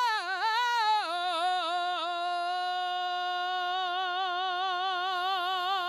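A woman's gospel voice holds one long sung note with a steady vibrato, unaccompanied. The pitch dips and wavers during the first second, then settles on a single sustained note.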